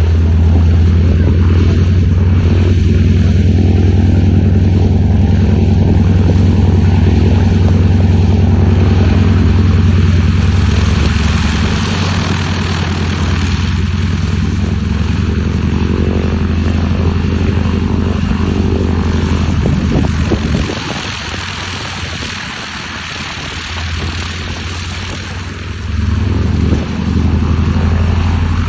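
Piston engine of a vintage American military propeller plane running with a loud, deep, steady drone. It eases off about twenty seconds in and builds up again near the end.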